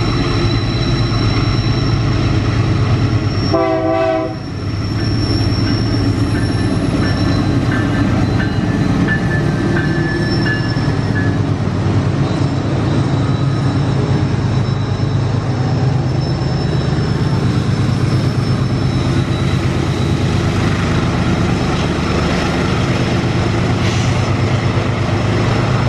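Diesel-electric freight locomotives working hard under heavy throttle, hauling a loaded iron-ore train up a grade: a loud, steady deep engine rumble with a high whine over it. A short horn note sounds about four seconds in, and a faint thin wheel squeal comes and goes a few seconds later.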